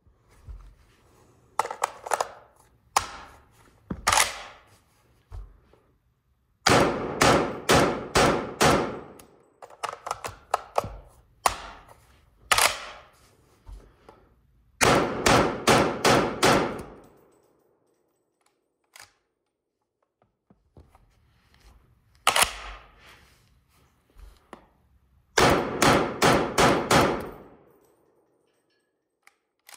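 CETME C rifle in 7.62×51 mm firing: a few single shots, then three strings of rapid shots, about two to three a second, each shot ringing out with a trailing echo.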